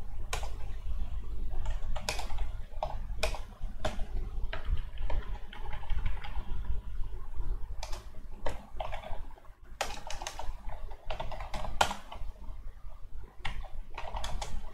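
Typing on a computer keyboard: irregular keystrokes in short runs with brief pauses between them.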